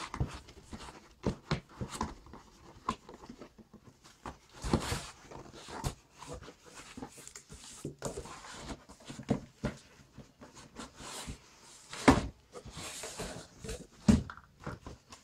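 Cardboard boxes being handled: a shoebox being worked out of a cardboard shipping carton, with irregular scrapes, rustles and knocks of cardboard on cardboard, the loudest knock about twelve seconds in.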